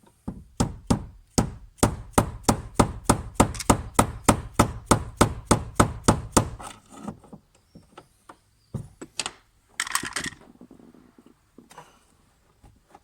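A fast, even run of sharp knocks, about four a second, for some six seconds, as a fuel pump's locking ring is tapped round to tighten it down on the fuel tank; a few single knocks and a short scrape follow.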